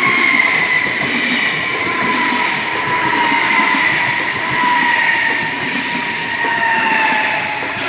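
A passenger train passing close by, its wheels rumbling on the rails, with a steady whine that slowly falls in pitch.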